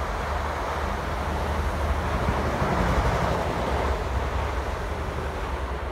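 South Western Railway Class 444 Desiro electric multiple unit running through the station at speed, a steady rush of wheels on rail and air with a low rumble. It swells to a peak about halfway through, then fades as the train pulls away.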